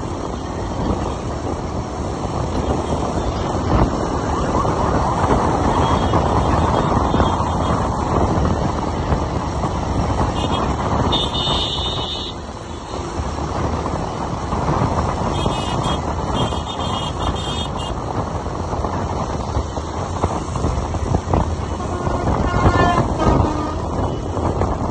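Steady rush of wind and engine and road noise from a motorcycle being ridden at speed through traffic. A few short, high horn toots come about halfway through and again near the end.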